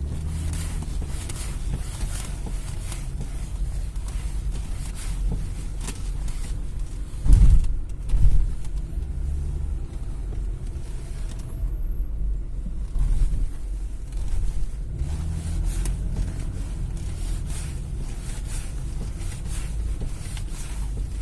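BMW E39 idling while the steering wheel is turned, with a low steady rumble throughout. Two heavy knocks from the front end come about seven and eight seconds in: the steering knock the owner is chasing.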